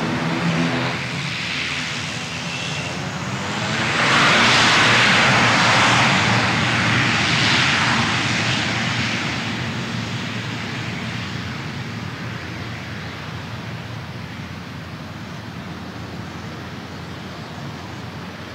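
Jet aircraft engines: a low engine hum stops about a second in, then a broad rush of jet noise swells about four seconds in, holds loud for a few seconds and slowly fades to a steady hiss.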